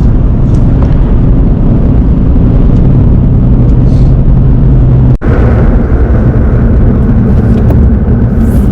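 Steady road and engine noise heard inside a moving car's cabin, with a very short dropout about five seconds in.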